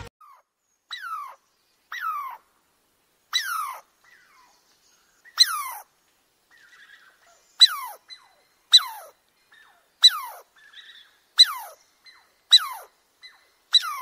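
Squirrel calling: a series of about ten sharp chirps, each sliding steeply down in pitch, at first one to two seconds apart and then about one a second, with a few fainter calls between them.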